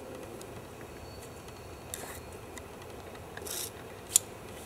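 Shock-cord guy line being pulled through its cord lock by hand: two brief rubbing slides of cord, about two and three and a half seconds in, then a single sharp click near the end.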